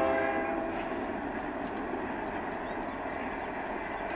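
A freight locomotive's horn dies away in the first second, leaving the steady rolling noise of a freight train's cars crossing the road ahead.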